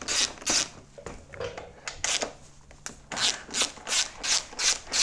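A 5 mm Allen key turning out a motorcycle fairing bolt: a rhythmic rasping of about three strokes a second, which breaks off after the first second and starts again about three seconds in.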